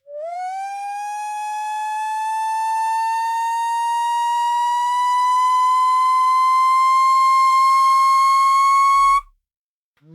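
Operating table's electric lift motor running as the table rises: a whine that climbs quickly at the start, then rises slowly and steadily in pitch for about nine seconds before cutting off suddenly.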